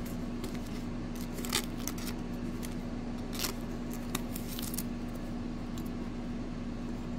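A trading card being slid into a clear soft plastic sleeve: a few brief crinkles and rustles of thin plastic, over a steady hum.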